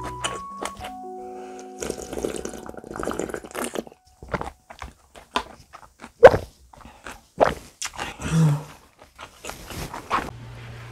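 Broth slurped straight from a plastic takeout container of rice cake and dumpling soup, a wet, noisy stretch lasting about two seconds. Then comes a run of sharp clicks and knocks from the plastic container and from chewing. Light background music plays at the start and returns near the end.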